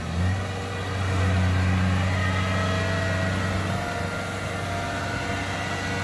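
Rice combine harvester's engine running under load as the machine crawls on its tracks through deep paddy mud, getting louder about a second in and easing a little a few seconds later.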